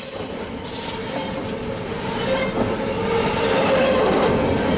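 Double-stack container well cars of a Union Pacific intermodal freight train rolling past, a steady rush of steel wheels on the rails with clacking over the joints and a thin high wheel squeal.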